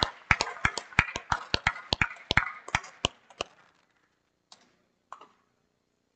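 Applause dying away: loud single claps about three a second over a thinner patter of clapping, fading out a little over three seconds in, followed by two last lone claps.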